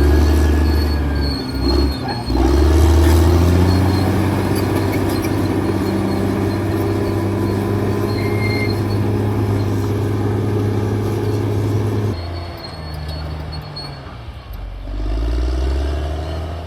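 Caterpillar D6R XL bulldozer's diesel engine working steadily, with faint high squeals from its steel tracks. The engine note drops about twelve seconds in, then revs up again near the end.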